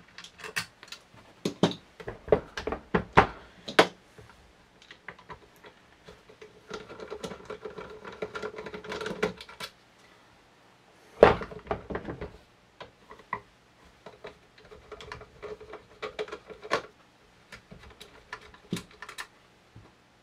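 Scattered metallic clicks and taps of a flathead screwdriver working the small stainless-steel fore-end screws out of a pump-action shotgun, with the screws and tools handled on the bench. A rasping stretch comes around the middle, and there is one louder knock about eleven seconds in.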